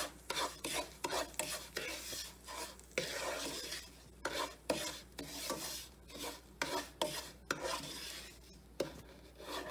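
Wooden spatula stirring and scraping semolina (rava) as it dry-roasts in a nonstick pan, in repeated, irregular rasping strokes against the pan's surface.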